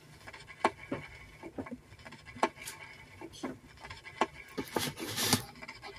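Vinyl record surface noise from a spoken-word LP: the stylus riding a silent stretch of groove, giving irregular crackles and pops over a low steady hum, with a louder scratchy rustle about five seconds in.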